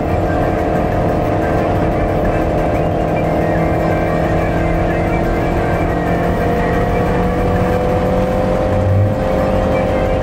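Car engine running at a steady cruise with a constant hum of engine and tyre noise on the road, its pitch rising slightly in the second half. A brief low bump about nine seconds in.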